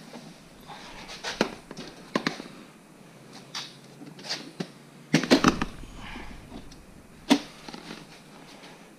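A C7 Corvette seat being carried and manoeuvred through a car's door opening: scattered knocks, bumps and rustling, with a heavier cluster of thumps about five seconds in and a single sharp knock near the end.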